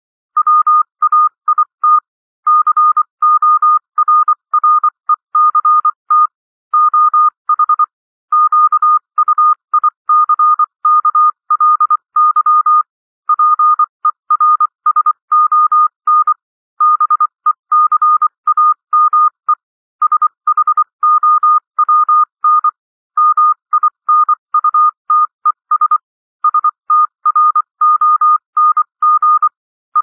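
Morse code (CW) sent as a single steady beep keyed on and off in dots and dashes at about 24 words per minute, with short gaps between letters and longer gaps between words. It spells out plain English words such as "finally wait correct oh quickly person became shown minutes strong".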